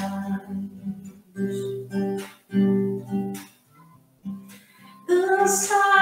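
Acoustic guitar strummed in a steady rhythm of chords, breaking off briefly about four seconds in; a woman's singing voice comes in near the end.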